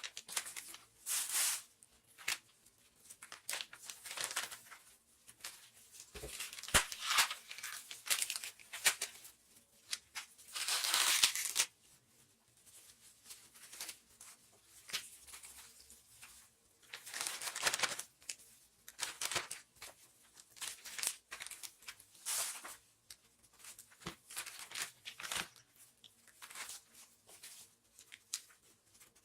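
Plastic wrap and food bags crinkling and rustling in the hands, with irregular tearing swishes, as meat is wrapped into small portions. The longest swish, about a second, comes roughly a third of the way through.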